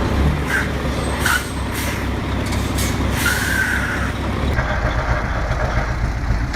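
Heavy truck diesel engine running, with several short hisses of air and a brief squeal a little after the middle. About four and a half seconds in the engine sound changes to a different, steadier rumble.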